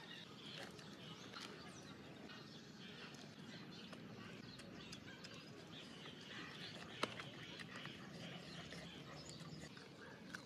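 Faint outdoor background with scattered bird chirps, and a single sharp click about seven seconds in.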